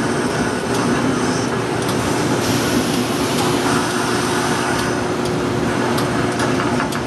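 Steady din of industrial laundry ironing machines running: a constant rushing noise with a steady hum under it and a few light clicks.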